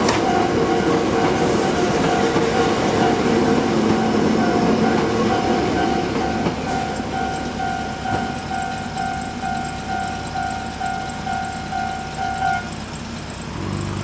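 A Hakone Tozan Railway electric train runs over the level crossing, its rumble fading over the first half. The crossing's electronic warning bell rings steadily about twice a second throughout and stops suddenly shortly before the end, as the barriers begin to lift.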